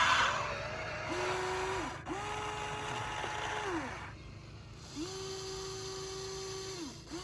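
Small electric motors of a radio-controlled construction model whining in about four separate runs, each rising in pitch as it starts, holding steady for one to two seconds, then falling away as it stops.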